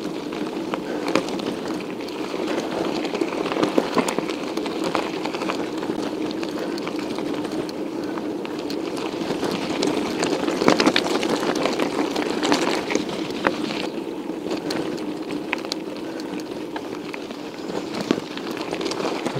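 Steady wind and rolling noise from riding a 1991 Scott Montana bicycle: air rushing over the camera microphone and tyres on the road, with many small scattered clicks and rattles.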